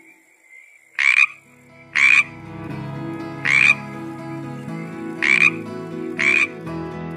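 A tree frog calling: five short croaks, each a fraction of a second long, spaced one to nearly two seconds apart.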